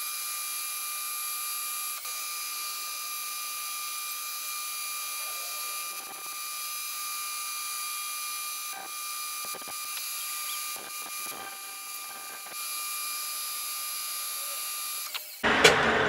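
Metal lathe running with a small boring bar taking a cut inside the bore of a pulley blank: a steady mechanical whine made of several constant tones. Near the end the sound changes abruptly to a louder, rougher noise.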